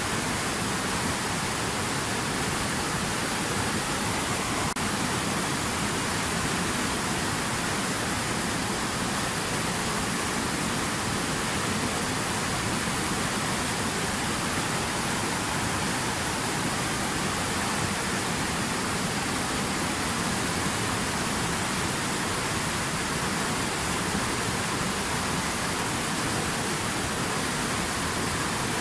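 Stream rapids rushing steadily, a constant even wash of flowing water.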